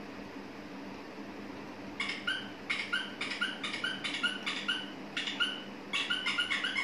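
A rapid series of short, high, squeaky animal calls played from a phone speaker, about three a second, starting about two seconds in and coming faster near the end.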